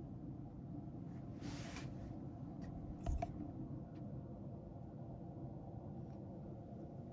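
Steady low hum of a fan heater running in a small room, with a short rustle about a second and a half in and a soft thump about three seconds in.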